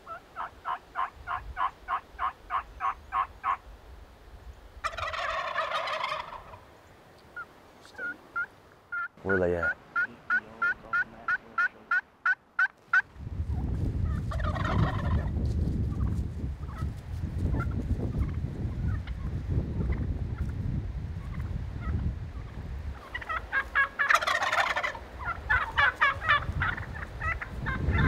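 Young Rio Grande turkeys (jakes) gobbling several times, between runs of quick, evenly spaced yelps. Wind rumbles on the microphone from about halfway through.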